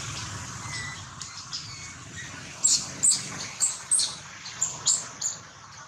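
Baby macaque giving a string of about seven short, high-pitched squeaks, starting about two and a half seconds in.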